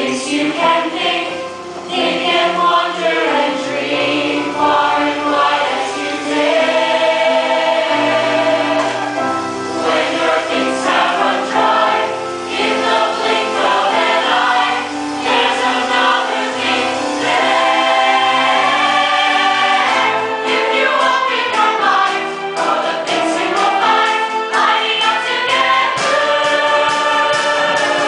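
Musical-theatre cast singing together as a chorus over accompaniment, loud and continuous.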